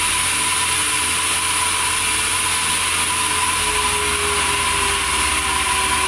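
Band sawmill running steadily with a constant hum and a high whine, its blade turning but not yet cutting into the log. From a little past halfway a faint tone slowly drops in pitch.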